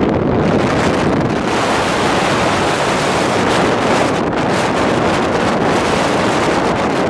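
Steady rush of wind buffeting the microphone from a moving car, over the car's road noise.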